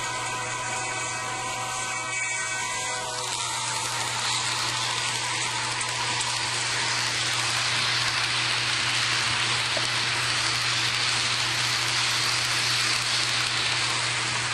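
HO-scale model freight train rolling past: a steady whirring hiss of its motor and wheels on the track that grows louder a few seconds in.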